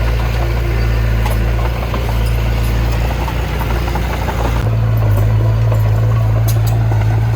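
Heavy diesel machinery engine running steadily with a deep drone. Its note changes abruptly about two-thirds of the way through.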